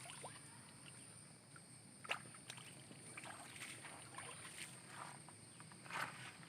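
Faint water sloshing and small splashes, with two slightly louder splashes about two seconds in and near the end.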